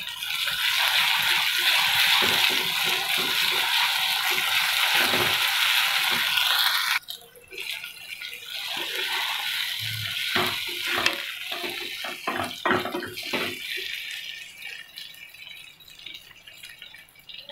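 Onion, tomato, green chilli and ginger-garlic paste frying in hot oil in a nonstick kadai, sizzling loudly while a wooden spatula stirs and scrapes. About seven seconds in the loud sizzle cuts off suddenly, leaving a softer sizzle with scattered knocks and scrapes of the spatula against the pan.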